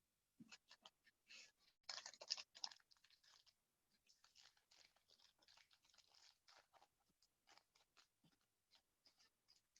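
Faint rustling and clicking of trading cards being handled and flipped through, in short irregular bursts that are densest about two seconds in and then thin to scattered ticks.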